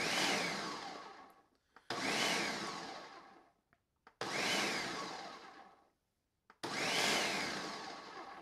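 Countertop blender pulsed four times, about two seconds apart, chopping vanilla beans in their dark extract liquid. Each pulse starts sharply and fades as the motor winds down.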